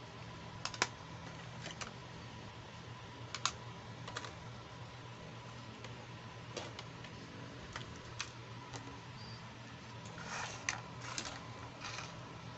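Small hard-plastic doll accessories clicking and tapping as they are handled and set down: scattered light clicks, then a quick cluster of taps near the end, over a faint steady hum.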